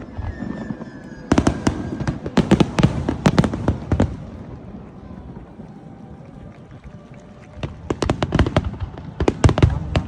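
Fireworks bursting overhead in rapid volleys of sharp cracks and bangs: a dense cluster for about three seconds, a lull of a few seconds, then another crackling volley near the end.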